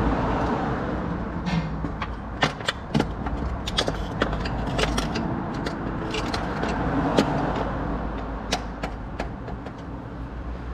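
A car engine running steadily, with many short clicks and light knocks scattered over it.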